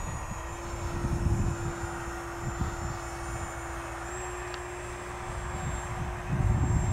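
Dancing Wings Hobby Savage Bobber's small 2S electric brushless motor and propeller whining steadily in flight, a single tone that steps up slightly in pitch twice. Wind buffets the microphone.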